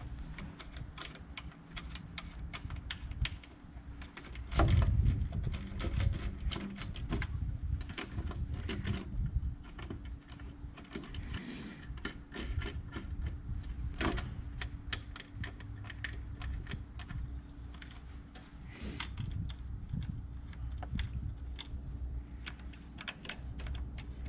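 Irregular clicks, taps and rattles of tools and small metal and plastic parts being handled while an Ariston Velis 80 electric water heater is taken apart, over a steady low hum.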